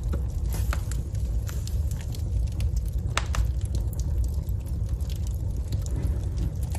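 Wood fire crackling in a fireplace: irregular sharp pops and snaps over a steady low rumble, with a few louder pops, two of them close together midway.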